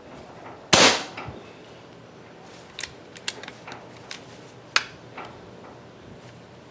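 A single shot from a regulated Evanix Rainstorm II PCP air rifle: one sharp crack about a second in with a brief tail. Several light clicks and a sharper tick follow over the next few seconds.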